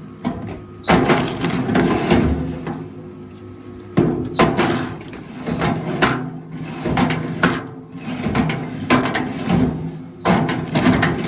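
Rail log splitter working under a steady low machine hum, with repeated sharp creaks and cracks of wood giving way as logs are split.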